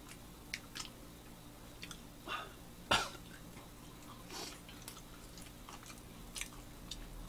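Quiet chewing and biting into toast sandwiches made with butter-toasted bread: small crunches and mouth clicks scattered through. One louder, sharp sound about three seconds in, either a crunchy bite or a short cough.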